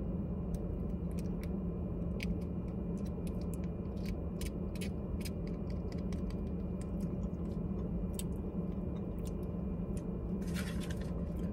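Steady low hum of a car cabin, with scattered small clicks and crinkles from squeezing a plastic sauce packet into a plastic sauce cup, and a short run of quick clicks near the end.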